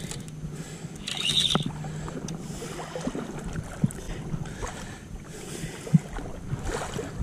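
Shallow sea water sloshing and splashing around a wading angler, with scattered small clicks and knocks, one sharper knock about six seconds in.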